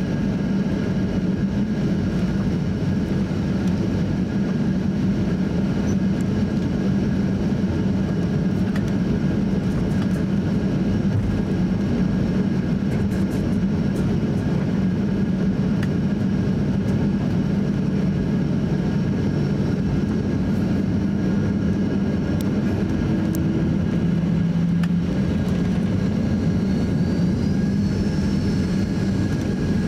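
Cabin noise inside a Boeing 737-800 taxiing, its CFM56-7B jet engines running steadily at taxi power: an even drone with a few held tones. A faint whine rises briefly near the end.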